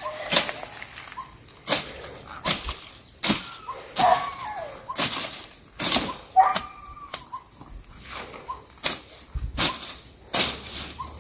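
A hand blade slashing through grass and weeds, about one sharp swish a second, over a steady high drone of crickets.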